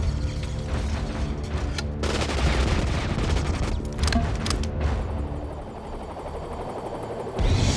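Minigun firing in a film soundtrack: continuous, very rapid gunfire heard as a dense buzzing roar, with a sudden louder burst near the end.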